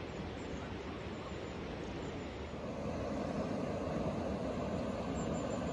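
Steady rushing roar of water pouring over a river weir, growing a little louder and fuller about halfway through.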